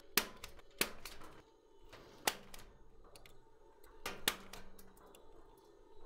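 Punch-down tool snapping network cable wires into place in the back of a Cat 6 patch panel: about five sharp clicks at uneven intervals.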